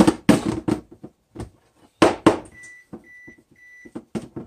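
Spatula stirring seasoned flour in a plastic tub, scraping and knocking against its sides. In the second half an electronic kitchen appliance beeps three times, each beep short and at the same pitch.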